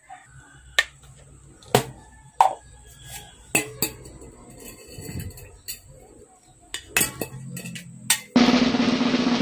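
Scattered sharp clicks and knocks, then about eight seconds in a steady hiss starts as an aerosol insecticide can is sprayed on termites.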